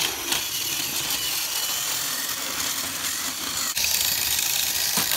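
Battery-powered Plarail toy trains running on plastic track: a steady small-motor whir with rattling and a few clicks, getting louder about four seconds in.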